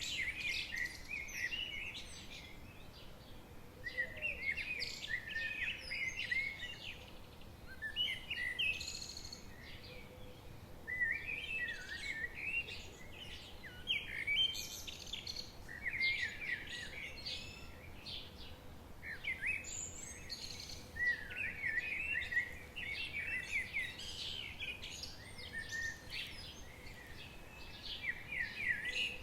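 Several songbirds singing in bouts of quick, twittering chirps every few seconds, over a faint steady background of ambient noise.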